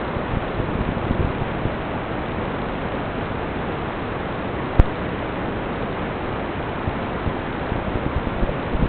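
Steady rushing hiss from an FPV drone flight recording, with no motor whine, broken by scattered low thumps and one sharp click about halfway through.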